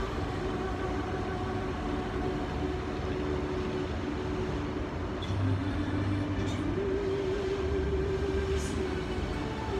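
Fountains of Bellagio show: music with long held notes playing over outdoor loudspeakers, under the steady rush of the water jets. The held notes shift in pitch about two-thirds of the way through, and a few short spurts of spray hiss out near the end.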